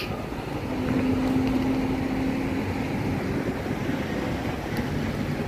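Steady engine rumble mixed with wind on the microphone, with a short steady hum from about one to two and a half seconds in.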